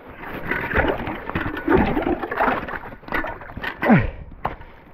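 Ice and slush crunching and cracking under a booted foot stamping and kicking to break the ice bridge between two freshly drilled fishing holes, in irregular strokes.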